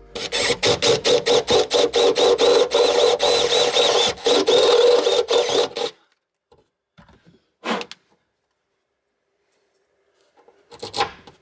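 Cordless drill running and drilling into a carpet-lined van side panel, pulsing about four times a second with a wavering motor whine for about six seconds, then stopping. A couple of short scuffs or knocks follow as the panel is handled.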